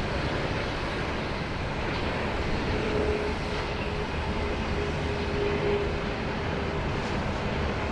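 Airbus A380's four jet engines running during the landing, a steady rushing noise with a faint hum that comes in about three seconds in.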